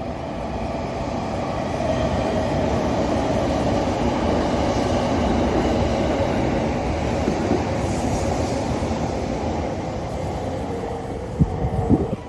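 A train running past close by: a steady rumble of wheels on rails that swells over the first two seconds and holds, with a few sharp knocks about a second before the end.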